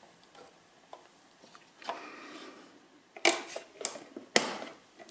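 Hinged plastic lid of a weatherproof outdoor double socket being closed and snapped shut by hand: a soft rustle of handling, then several sharp plastic clicks and knocks over the second half, the loudest a little after four seconds in.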